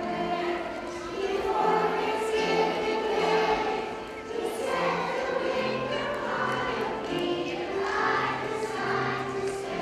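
A group of kindergarten children singing a song together, in unison.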